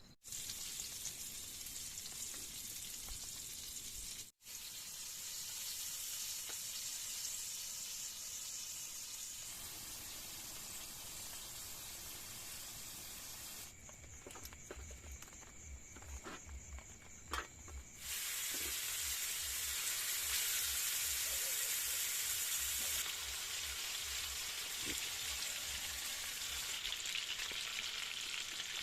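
Heavy rain falling as a steady hiss, broken into several takes with abrupt changes in level. In the middle stretch the hiss thins, and irregular low thuds and a few clicks come through.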